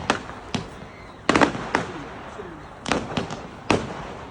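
Fireworks going off in sharp bangs, about ten of them at uneven spacing, with a quick cluster around a third of the way in and several more close together after the middle.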